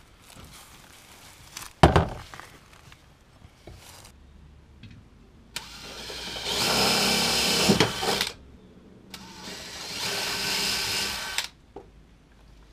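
A sharp knock about two seconds in, then a power drill running in two bursts of a couple of seconds each, driving bolts to fasten brackets.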